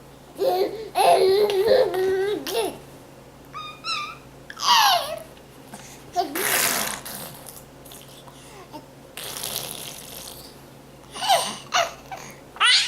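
A baby babbling and squealing in separate bursts. About five seconds in a high squeal slides down in pitch, and there are breathy, hissing sounds in between.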